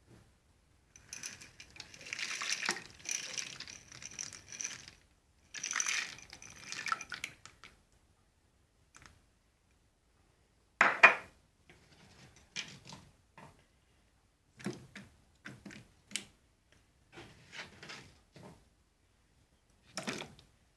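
Handfuls of frozen peas dropped into plastic bowls of water: two long rattling, splashing spells in the first seven seconds, a loud sharp knock about eleven seconds in, then scattered small plops and clicks, with chopped carrot pieces dropping into the water near the end.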